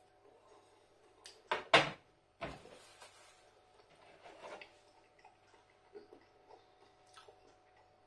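A few sharp knocks and a clatter of a china plate being handled and set down on a kitchen worktop: three quick knocks a little over a second in, the loudest near two seconds, another just after, then quieter light handling clicks.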